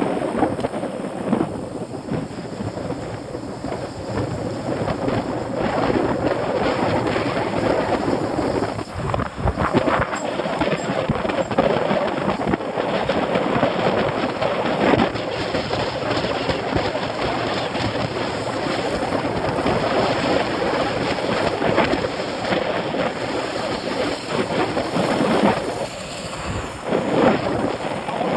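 Wind buffeting the microphone: a loud, uneven rushing noise that keeps rising and falling.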